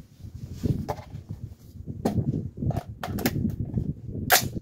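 Wind buffeting the microphone in an irregular low rumble, with a few short, sharp noises; the loudest comes about four seconds in.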